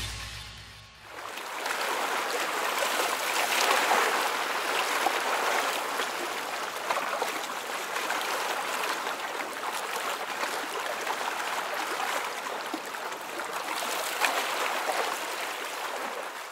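The tail of the music dies away. From about a second in, a steady rushing noise runs on.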